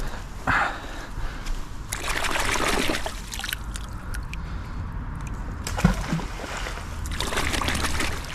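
Canal water splashing and sloshing as a muddy spark plug pulled up by a magnet is swished through it to rinse it, in two bursts a few seconds apart. A single sharp knock comes between them.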